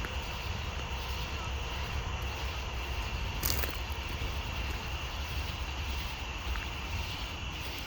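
Wind buffeting the microphone: a steady low rumble, over a faint steady high-pitched hum, with one short click about three and a half seconds in.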